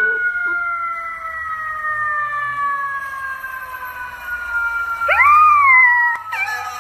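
A siren sounds one long tone that slides slowly down in pitch. About five seconds in, a golden retriever puppy howls along with it, its voice rising sharply and then falling, and it starts howling again near the end.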